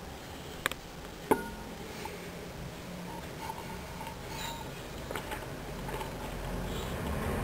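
Hoover washing machine during the final fabric-softener rinse of its wool cycle: a steady low hum with two sharp, briefly ringing clicks about a second in, the hum growing a little louder near the end.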